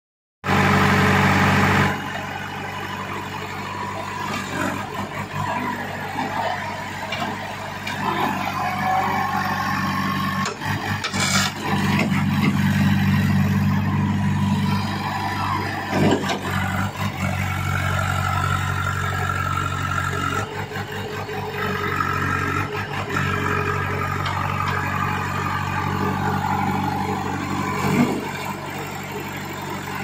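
JCB backhoe loader's diesel engine running under load, rising and falling in level as the machine drives and pushes soil with its front bucket. A couple of sharp knocks stand out, about halfway through and near the end.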